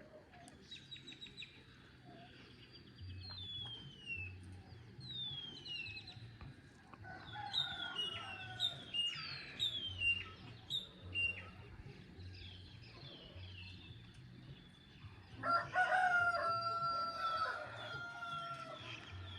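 Songbirds singing with short, descending whistled calls. About three quarters of the way through, a rooster gives one long crow, the loudest sound.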